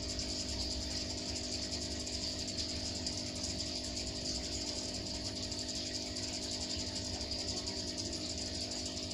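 Aquarium pump and aeration running: a steady electric hum with a constant hiss of bubbling water.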